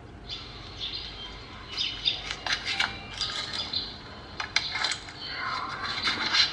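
WS-215 inverter stick welder giving a high-pitched squeal with crackling and clicks as the electrode is touched to the work, heard played back through a phone. No welding current comes out, only the very loud squeal, which the repairer likens to the oscillator circuit misbehaving.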